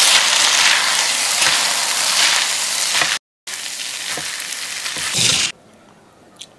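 Food frying in a hot pan, a steady loud sizzle. It breaks off completely for a moment a little past three seconds, resumes, then stops suddenly about five and a half seconds in.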